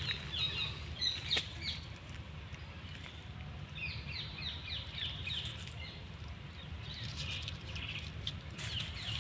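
Birds calling in two runs of short, quick, falling chirps, one near the start and another about four seconds in.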